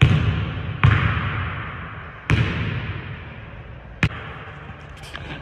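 A basketball bouncing on a hardwood gym floor: three heavy bounces spaced about a second apart, each ringing on in the large hall's echo, then a short sharp smack about four seconds in.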